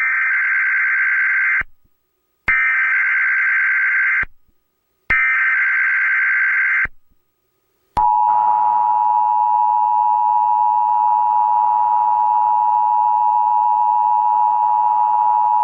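Emergency Alert System tones: three short bursts of SAME header data, each a harsh digital screech about a second and a half long, then the steady two-tone EAS attention signal (853 and 960 Hz) starting about eight seconds in. This is the alert that announces an emergency message.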